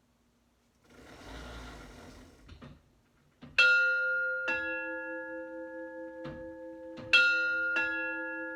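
Chimes of a chain-pull mechanical doorbell sounding a two-note ding-dong, a higher note then a lower one, played twice, each note ringing on long. A soft knock comes just before each pair, and there is a brief rushing noise about a second in.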